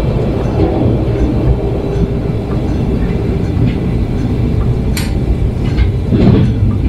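Cabin of a Stadler GTW diesel-electric railcar under way: a steady low rumble of the engine and wheels on the rails, with a sharp click about five seconds in and a louder clatter near the end.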